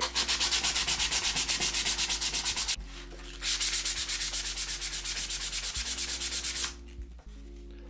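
A plywood rocket fin being hand-sanded with sandpaper in quick back-and-forth strokes, about four or five a second. The strokes come in two runs with a short break a little before three seconds in, and stop about a second before the end. The fin edge is being sanded down so that it fits the fin slot.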